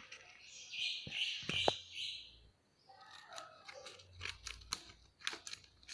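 Scissors cutting open a cardboard box: a scraping stretch of cutting, then a run of short, sharp snips.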